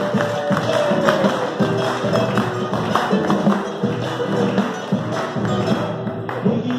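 Live Argentine folk music: two acoustic guitars strummed in a steady rhythm, with hand drums keeping time.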